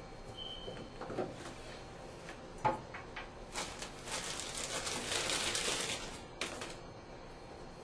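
Hands working at a Moen Chateau chrome tub-and-shower valve trim plate: a few light clicks and taps, then about two seconds of rubbing noise.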